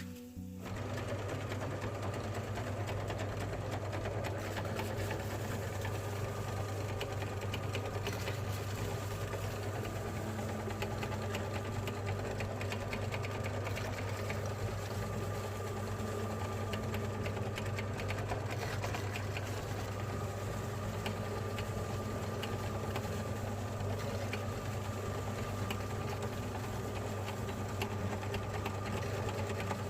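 Electric meat grinder motor starting about a second in and then running with a steady hum, crunching and crackling as it grinds biscuits.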